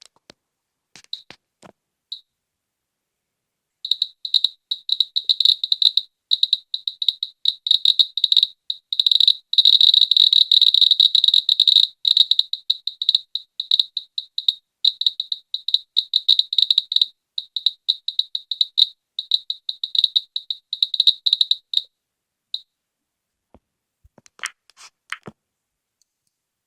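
Geiger counter's high-pitched beeper chirping once for each count, at an irregular, random rate. The chirps crowd into a near-continuous run about ten seconds in, a higher count rate, then thin out and stop a little after twenty seconds. A few short clicks come near the start and again near the end.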